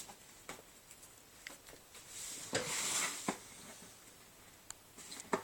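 A cardboard gift box being handled and opened: a few light clicks and taps, with a rustle of paper or packing about two and a half seconds in.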